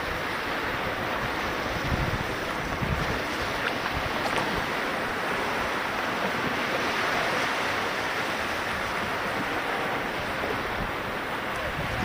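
Small sea waves washing over a shallow sandy, rocky shore: a steady hiss of moving water, with wind buffeting the microphone in low, uneven rumbles.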